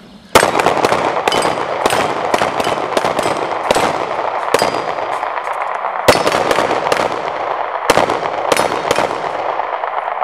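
Two pistols firing at once in a timed shoot-off, rapid overlapping shots, several a second. The first shot comes suddenly about half a second in and is among the loudest, and the firing keeps on throughout.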